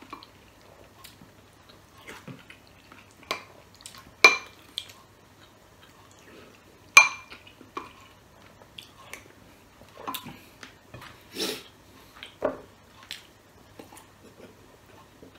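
A metal spoon clinking and tapping against a small glass bowl and a plate. Two sharp, ringing clinks stand out, about four and seven seconds in, among lighter taps.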